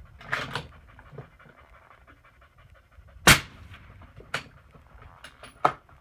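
A single suppressed rifle shot about three seconds in: a 6.5 Creedmoor fired through a Thunder Beast 9-inch 30-cal Ultra suppressor, which reads about 127 dB at the shooter's ear. Fainter sharp metallic clicks come near the start and again a second or two after the shot as the rifle is handled.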